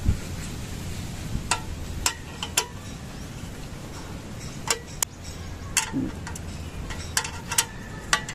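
Irregular sharp metallic clicks, about nine in all, from a small hand socket wrench turning bolts on a motorcycle top-box mounting plate and its metal bracket, over a steady low rumble.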